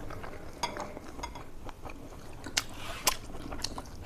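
A person eating close to the microphone: soft chewing and biting with a handful of light, sharp clicks spread through.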